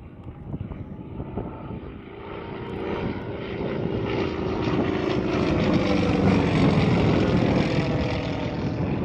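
Sukhoi Su-26 aerobatic plane's nine-cylinder M-14P radial engine and propeller running hard. It grows louder as the plane comes closer and is loudest about six to seven seconds in, with its pitch falling slightly on the way.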